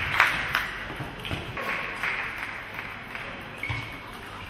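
Table tennis rally: the ball clicks sharply off bats and table, about two or three hits a second, and the rally stops about half a second in. After that only fainter hall noise with a few light ticks remains.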